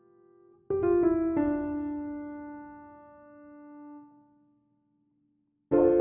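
Background piano music: a few notes struck together about a second in, left to ring and fade away, then a new phrase of notes begins near the end.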